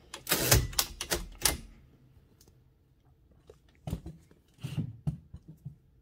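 Keys being typed on a 1914–1922 Empire No. 2 thrust-action typewriter: about six sharp strikes of the type slugs against the platen in quick succession in the first second and a half. A few fainter clicks follow about four to five seconds in.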